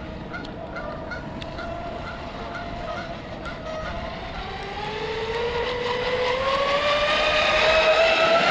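High-speed RC catamaran's motor and propeller whine. It holds a steady pitch at first, then from about halfway through rises in pitch and grows louder as the boat speeds up.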